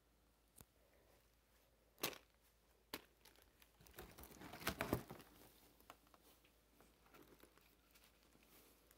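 Plastic and foil wrapping crinkling as gift items are handled, after a few sharp clicks, the loudest about two seconds in; the crinkling is loudest around the middle and then fades to faint rustling.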